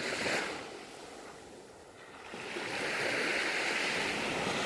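Small waves washing in over a sandy beach: a short surge at the start, a lull, then a longer wash that swells up in the second half.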